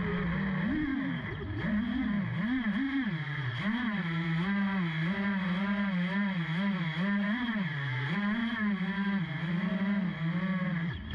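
FPV racing quad's four brushless motors (Emax 2300KV on 4S) spinning 5-inch three-blade props, heard from the GoPro mounted on the quad: a buzzing whine that rises and falls continually with the throttle. It cuts off suddenly near the end.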